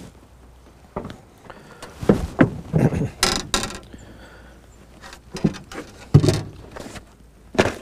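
Fishing tackle being handled and rummaged through in a small boat: a string of knocks, clicks and short scraping rustles, with one sharp knock a little after six seconds in.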